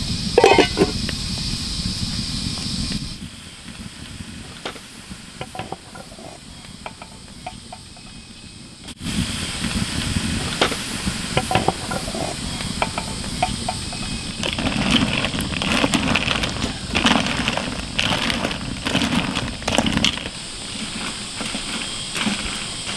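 A pot of snails boiling over a wood fire, with the fire crackling and a steady hiss. In the later part a wooden paddle stirs the pot, making a run of short knocks and clacks.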